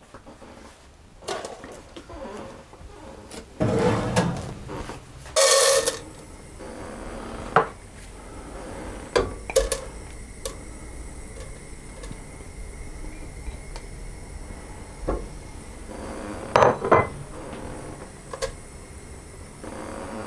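Kitchen clatter of a saucepan and utensils: scattered knocks, clinks and scrapes as a plate and a spatula meet the metal pan while ingredients are tipped in. The loudest clatter comes about four to six seconds in, with another cluster about seventeen seconds in.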